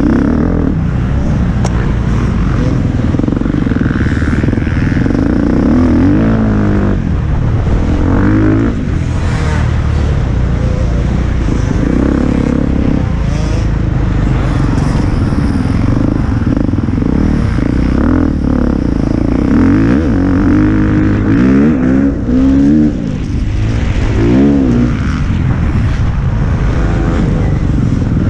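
Enduro motorcycle engine heard from on board, running loud under hard riding with the revs rising and falling over and over as the rider accelerates, backs off and changes gear on a muddy course; one short drop in the engine sound a little after two-thirds of the way in.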